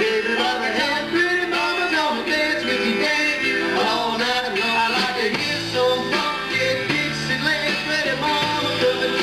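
A live country band plays amplified electric guitar, acoustic guitar, bass and drums.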